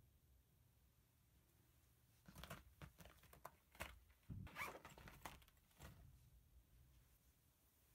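Faint rustling and crinkling of a clear plastic toiletry pouch as it is handled and set down on a bed, in a cluster of short crackles from about two seconds in to about six seconds.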